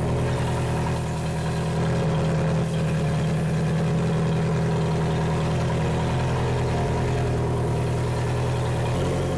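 Outboard motor with its cowling off idling steadily, run on a garden hose on its trailer as a test after repairs to a suspected failed water pump; a thin stream of cooling water from its tell-tale shows the pump is pumping.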